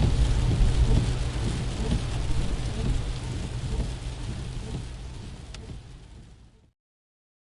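Steady rain with a deep low rumble underneath, fading out over the last few seconds.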